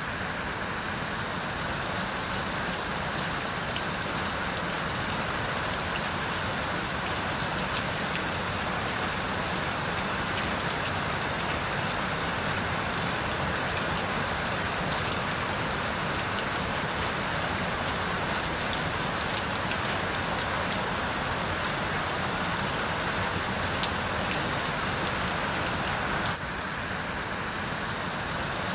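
Steady rain falling: an even hiss with scattered drops ticking on a surface. The level drops slightly near the end.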